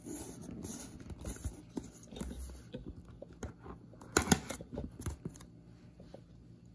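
Cardboard box being handled and turned over on a carpeted surface: scattered light rustles and taps, with one sharp knock about four seconds in.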